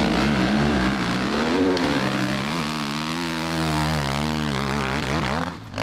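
An engine running steadily, its drone drifting slowly up and down in pitch.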